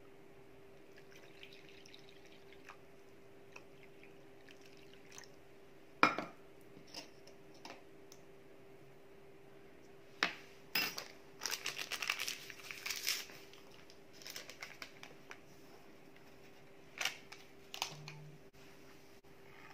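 Quiet sounds of ingredients being added to a bowl of flour by hand: a sharp knock about six seconds in, then a few seconds of scratchy, clinking handling noises, with a faint steady hum underneath.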